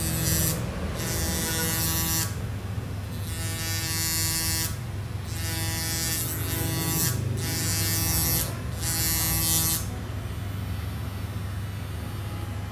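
Small handheld electric rotary grinder whining as it grinds on a phone's circuit board, in about six spells of one to two seconds each with the motor pitch steady, then running lighter near the end.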